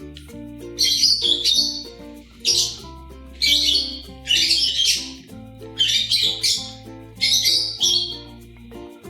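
Cockatiels calling in about six short bouts of shrill chirps and squawks, over background music.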